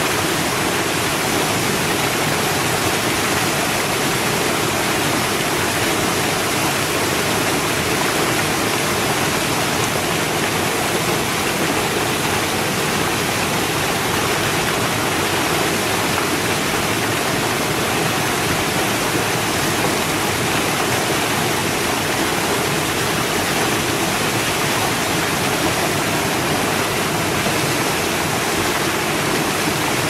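Waterfall: falling water rushing steadily and evenly, with no change in level.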